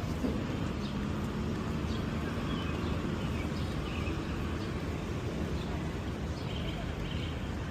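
Steady city street noise: a low traffic rumble, with a few faint, short, high chirps.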